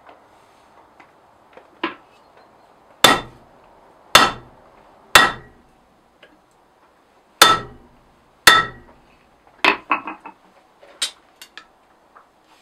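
Hand hammer striking a 6 mm mild steel rod laid across a hardy cutter on the anvil, cutting into the rod. There are five heavy, ringing metal blows about a second apart, with a pause after the third, then several lighter metallic clinks near the end.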